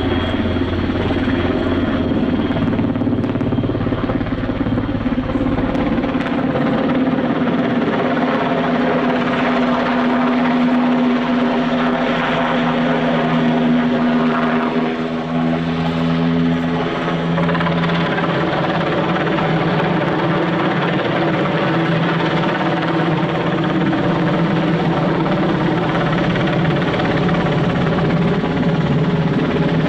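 NH90 military helicopter in flight, its rotor and twin turboshaft engines running loud and steady. Its strongest tone drops to a lower pitch about halfway through.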